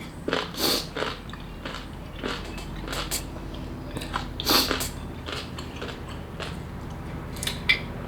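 A person biting and chewing a chamoy pickle close to the microphone: irregular crunchy bites every second or two, the loudest about four and a half seconds in.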